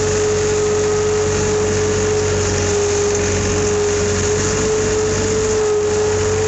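A vehicle engine running steadily, with a constant whine held at one pitch over a low hum.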